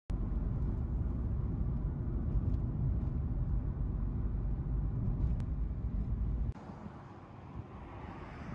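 Car road and engine noise heard from inside the cabin while driving: a steady low rumble that cuts off suddenly about six and a half seconds in, giving way to much quieter outdoor ambience.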